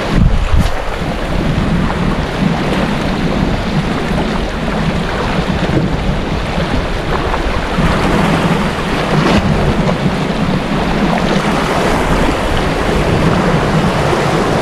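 Sea waves washing and breaking over shoreline rocks, with wind rumbling on the microphone, strongest just at the start.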